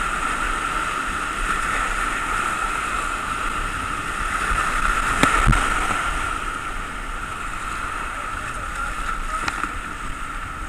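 Rushing whitewater of a mountain river rapid, heard from inside a kayak, easing off somewhat in the second half. A couple of sharp knocks stand out, the louder about halfway through and a lighter one near the end.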